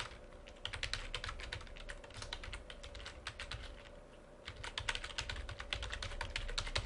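Typing on a computer keyboard: a quick run of keystrokes with a short pause a little past the middle, then fast typing again.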